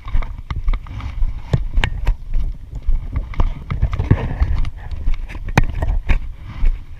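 Irregular knocks and clunks, a few a second, over a low rumble.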